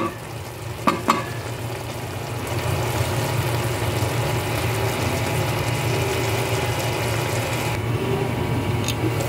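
A pot of squash, chicken and moringa leaves simmering in broth on the stove with a steady sizzling hiss, after a couple of light knocks against the pot in the first second. About three-quarters of the way through a glass lid goes on, and the sizzle turns duller.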